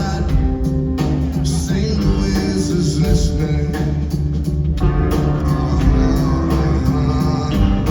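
Live rock band playing loud amplified music, with a steady, heavy low bass line under sustained instrumental tones.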